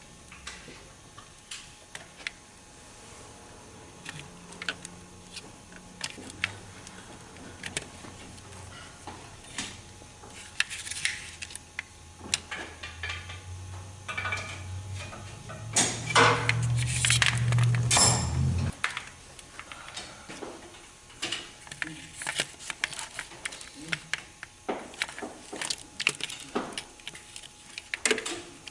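Metal parts and hand tools clicking and clinking as an internal wire harness is fitted into an automatic transmission. A low hum comes in about four seconds in, grows louder and cuts off suddenly about two-thirds of the way through.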